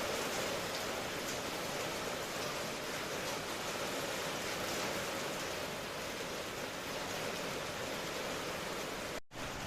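Steady, even rain. Near the end it cuts out for a split second before picking up again.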